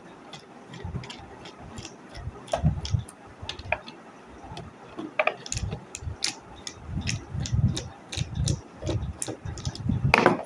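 A screwdriver undoing the lamp-housing screws of an Epson EB-S02 LCD projector: irregular sharp clicks as the screws turn, with low knocks and bumps from the plastic housing being handled on the table. A louder clatter comes near the end.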